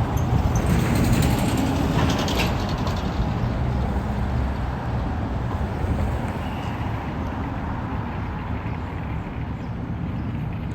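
Steady low rumble of city street traffic, with a quick run of ratcheting clicks about one to two seconds in.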